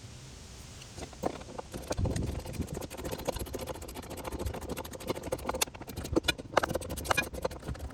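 Irregular clatter of sharp knocks and clinks, starting about a second in and running on unevenly.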